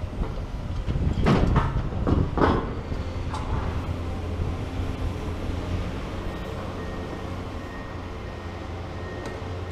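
Heavy excavator diesel engines running steadily at a demolition site, with several loud crashes of rubble and debris clattering between about one and two and a half seconds in.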